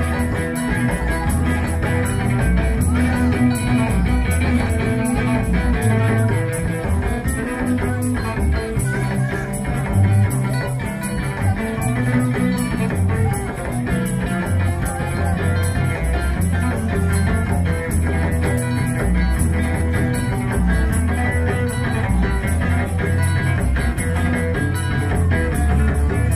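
Live Lampung orkes gambus band playing amplified music, plucked strings over a steady, rhythmic bass line.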